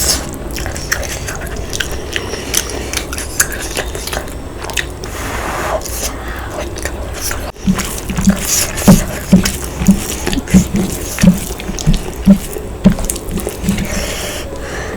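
Close-miked eating of curry and rice: wet mouth clicks and smacks, then from about eight seconds in steady chewing at roughly two chews a second.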